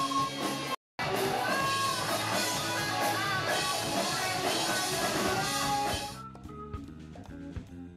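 Live rock band playing, with electric guitars and a drum kit. The sound cuts out briefly about a second in, and about six seconds in the music drops to a quieter, sparser passage.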